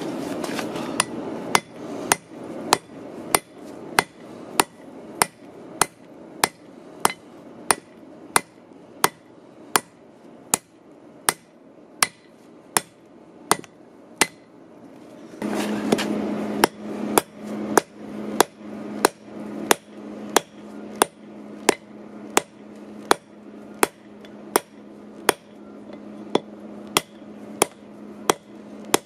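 Hand hammer striking a red-hot bolt head on a steel anvil, flattening it into a cutting blade, in a steady rhythm of about one and a half blows a second. The blows stop briefly about halfway through, then resume over a steady low hum.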